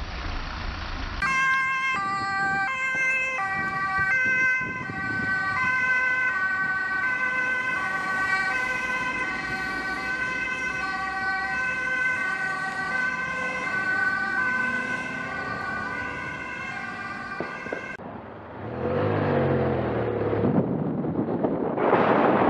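Ambulance siren sounding as the ambulance drives past on an emergency run, its tones stepping between pitches, quickly at first and more slowly later. Near the end it cuts to road and wind noise from a moving vehicle.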